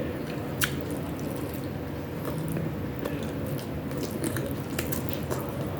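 Close-miked chewing and biting of food, wet and squishy, with a few sharp clicks, the loudest about half a second in.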